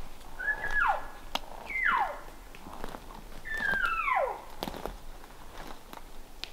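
Three elk cow calls (mews), each a high note that falls off steeply in pitch, the third the longest. Footsteps crunch through forest deadfall between them.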